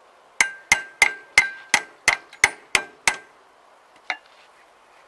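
Hammer striking the steel of a T-25 tractor's rear wheel hub: nine quick, ringing metal-on-metal blows, about three a second, then one lighter knock a second later.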